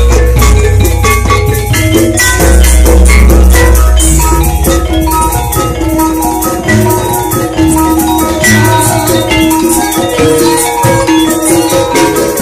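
Javanese gamelan playing loudly, the set struck hard: bronze saron metallophones and bonang kettle gongs hammered in fast pitched notes over kendang drums. Deep booms sound every couple of seconds, each lasting a second or two.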